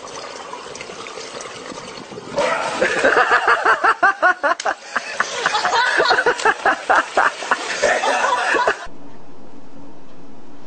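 A person laughing hard in a long run of rapid, loud bursts, starting about two seconds in. It cuts off suddenly near the end, giving way to a steady hiss.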